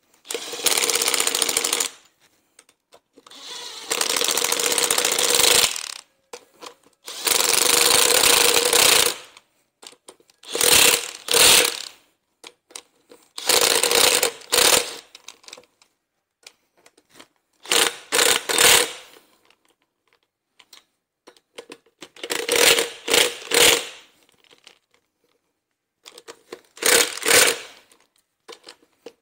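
Cordless impact driver hammering the bolts that hold a brake disc to its wheel hub, in about eight bursts of one to two seconds, the later ones shorter, as the bolts are torqued down a little at a time from side to side to pull the disc down square.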